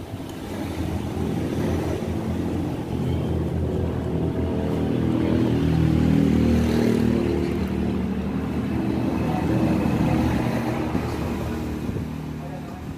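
A motor vehicle engine running close by, its steady hum rising to its loudest about halfway through, swelling again a little later, then easing off.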